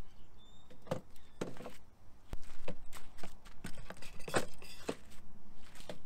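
Fishing rods being set into the aluminium rod holders of a loaded beach cart: a series of irregular knocks and clatters as rod butts and reels hit the metal tubes.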